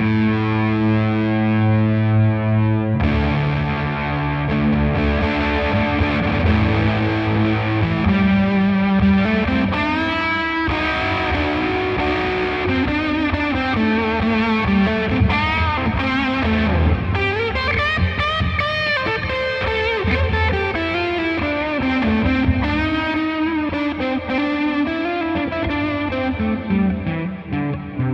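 Distorted electric guitar played through a DigiTech Polara reverb pedal on its Modulation preset, a Lexicon modulated reverb. A chord rings for about three seconds, then single notes and chords follow, wavering and bending in pitch in the second half.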